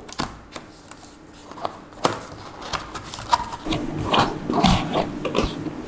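Hands handling and opening a cardboard box: the card rubs and scrapes, with scattered taps and clicks from the lid and its tabs, busier in the second half.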